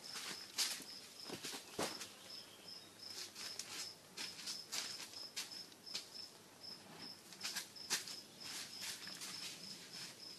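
Cricket-like insect chirping steadily, a high pulsed note about four times a second. Over it, scattered rustles, clicks and soft knocks as ripe tomatoes are picked off the vines and dropped into a plastic crate.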